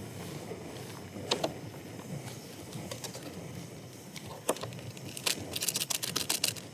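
Paper-and-foil lid of an instant ramen cup being handled and peeled back: a couple of sharp clicks, then a quick run of crisp crinkles near the end, over a steady low rumble.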